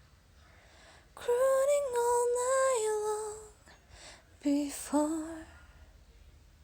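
A woman singing unaccompanied: a long held phrase that steps down in pitch, then a shorter, lower phrase about four and a half seconds in.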